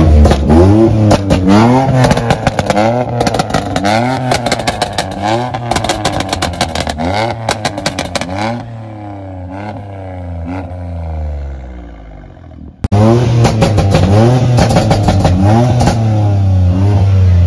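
BMW X3 M's twin-turbo straight-six being revved hard over and over, its pitch climbing and falling about once or twice a second, with crackles from the quad exhaust between revs. It goes quieter for a few seconds past the middle, then comes back loud all at once.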